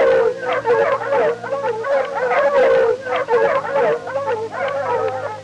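Several canids howling and yipping together, with many overlapping wavering calls that rise and fall in pitch.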